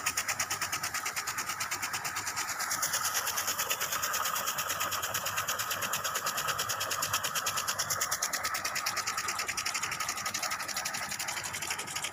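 Irrigation sprinklers watering a grass football pitch: a steady hiss of spraying water with a fast, even ticking, several ticks a second.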